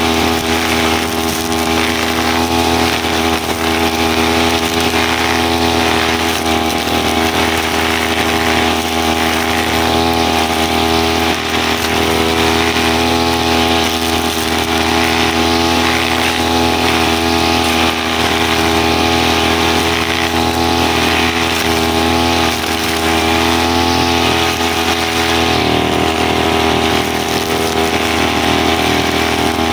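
Brushcutter engine running steadily at a constant speed while used to sweep dry leaves. Its pitch shifts slightly near the end.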